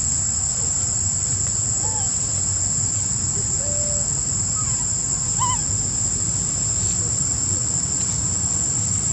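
Steady high-pitched drone of insects in chorus, with a low rumble underneath and a few short, faint chirps.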